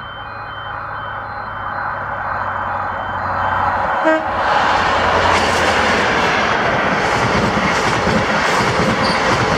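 LNER High Speed Train, a Class 43 diesel power car leading Mark 3 coaches, approaching and passing at speed: the engine's drone grows louder, a short horn toot sounds about four seconds in, then loud rushing wheel-and-rail noise as the coaches go by. Repeating electronic beeps sound until about three and a half seconds in.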